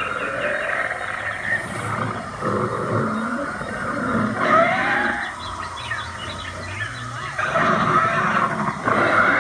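Recorded dinosaur roars and growls played from an animatronic theropod's sound system, getting louder near the end.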